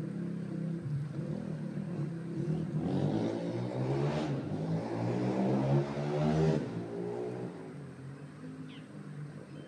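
A motor engine runs with a steady hum. About three seconds in it grows louder and rises in pitch, peaks around six seconds, then drops away.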